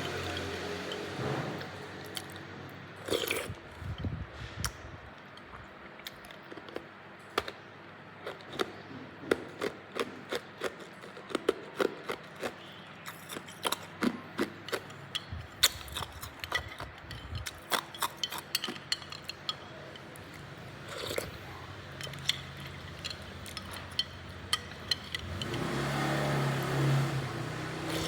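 Hard ice cubes being bitten and crunched: many sharp cracks in quick, irregular runs, with a louder swell of noise near the end.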